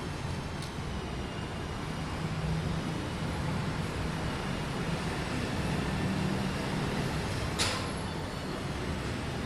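A steady low rumble with a faint hum, and one sharp click about three-quarters of the way through.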